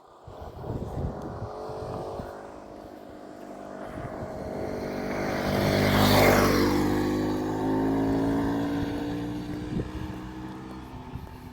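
A motor vehicle driving past: its engine grows louder to a peak about halfway through, its pitch drops as it passes, and it fades away.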